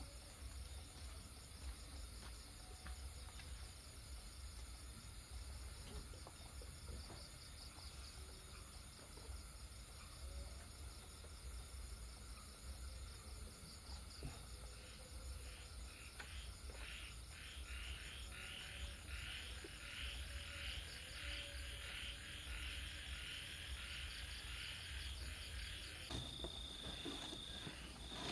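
Crickets and other night insects chirping: a steady high-pitched drone, with rhythmic pulsed chirping that comes in about halfway and grows louder. A steady high trill joins near the end.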